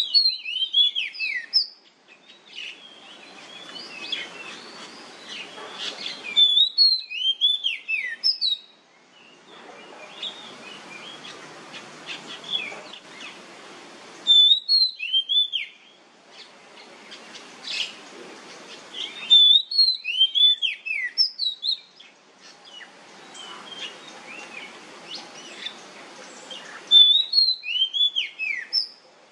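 Oriental magpie-robin singing loud, ringing whistled phrases in the 'nyemplong' style: each phrase is a burst of high, sharply slurred, mostly falling notes, repeated about every five to seven seconds. A softer, rougher sound fills the gaps between phrases.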